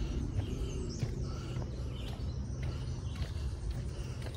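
Footsteps on a dirt woodland trail over a steady low rumble, with birds chirping now and then.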